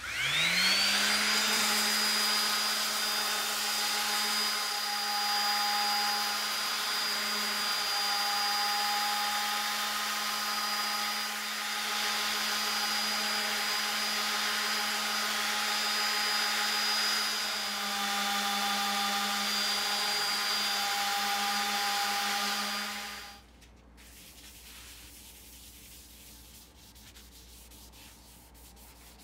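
DeWalt random orbital sander spinning up with a quick rising whine, then running steadily against a mesquite and epoxy-resin board, and switched off about three-quarters of the way through. After that, faint rubbing as a cloth wipes the board.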